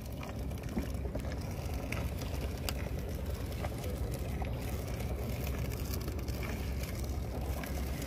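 Steady low hum of a small boat engine running, with faint scattered ticks and drips as a nylon gill net is hauled in over the side of a wooden boat by hand.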